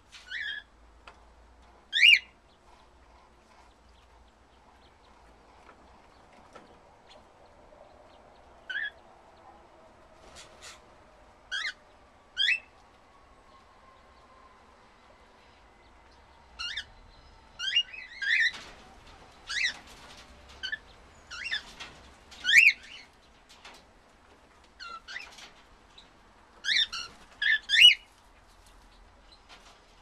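Cockatiels giving short chirping calls, a few at first and then many in quick succession in the second half.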